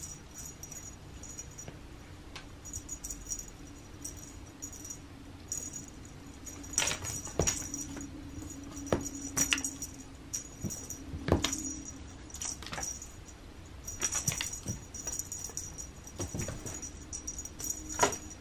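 A cat playing with a fabric wand toy on a cushion: scattered soft thumps and taps as it grabs and kicks at the toy, with intermittent rustling and faint jingling from the toy.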